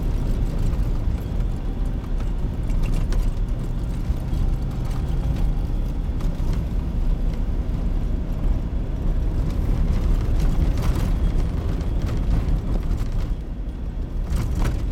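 Vehicle interior noise while driving on a snow-packed road: a steady low rumble of engine and tyres, with a few light knocks.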